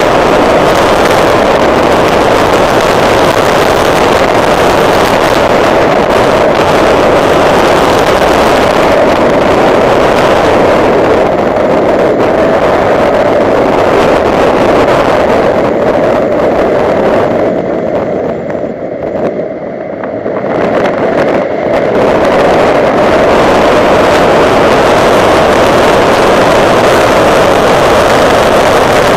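2009 Honda Civic Si driven at speed on a race track: the engine and the wind and road noise are loud and steady on the microphone. About eighteen seconds in it briefly goes quieter and duller for a few seconds, then comes back to full.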